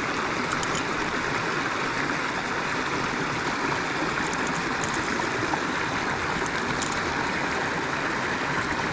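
Steady rush of running water, an even, unbroken noise with no change in level.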